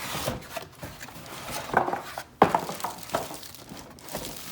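Household handling clatter: a run of light knocks and clinks, the loudest a sharp knock about two and a half seconds in.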